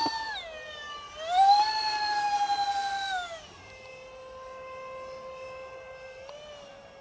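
Electric ducted-fan motors of a radio-controlled Su-35 model jet whining in flight, the pitch following the throttle. The whine dips about a second in, climbs back and is loudest for the next two seconds, then drops to a lower, quieter steady whine for the rest.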